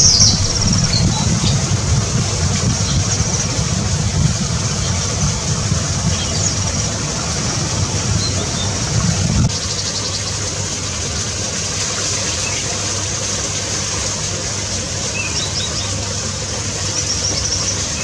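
Artificial rain from an aviary sprinkler falling through the foliage: a steady rushing noise with a low rumble under it, and a few high bird chirps at the start. About halfway through it cuts off, leaving a quieter, steady low hum with a few high chirps near the end.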